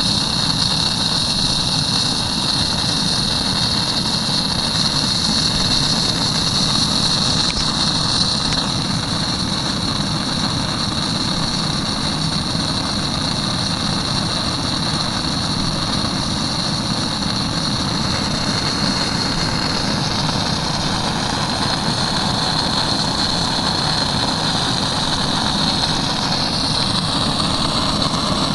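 Model hot air engine running steadily, its flywheel spinning: a continuous mechanical running sound with a steady high hiss over it.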